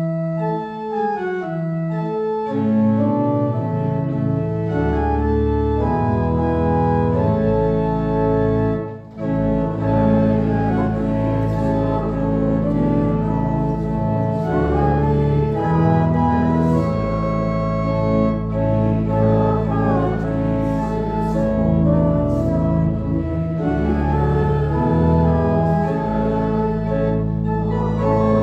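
Organ playing a slow hymn in sustained chords, with deep bass notes coming in about a second in, and a congregation singing along.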